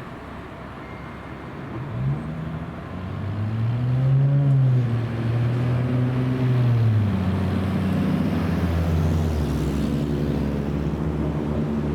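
1986 Mack MC rescue truck's diesel engine pulling away under load. Its pitch climbs from about two seconds in, holds, then drops near the middle as it changes gear, and runs steady after that.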